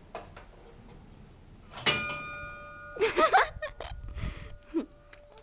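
Antique tower clock mechanism: light clicks, then about two seconds in a bell is struck once and its tone rings on steadily with several overtones. A loud cry-like sound with wavering pitch follows a second later.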